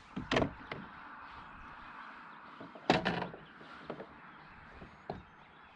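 A few knocks and thuds on a fishing kayak, the loudest a short cluster about three seconds in, with lighter ones near the start and end, over a faint steady hiss.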